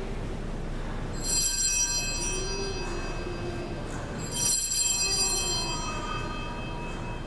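Hand-rung altar bells (sanctus bells) at the consecration of the Mass, a bright multi-bell jangle that rings out and fades. It is rung twice about three seconds apart and starts again at the very end, marking the elevation.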